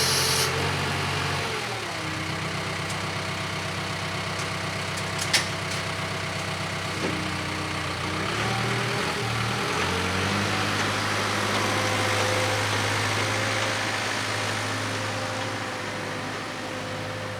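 A vehicle engine running, its pitch dropping about a second and a half in and rising again around eight to ten seconds in, with one sharp click about five seconds in.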